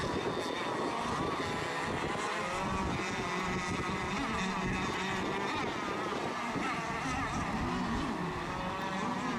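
Several radio-controlled racing boats' small engines running together on the water, their pitches wavering up and down as the throttles change.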